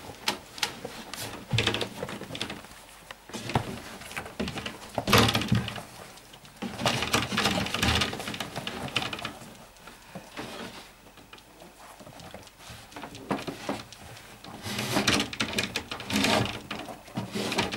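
A litter of five-week-old Airedale Terrier puppies scrabbling about in a plywood whelping box. Paws and bodies scuff the bedding and knock against the wooden walls in irregular bursts.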